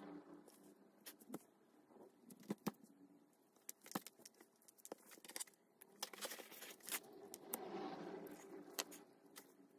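Faint rustling and scraping of a small piece of leather and a raccoon-fur tail being handled and folded, with scattered small clicks.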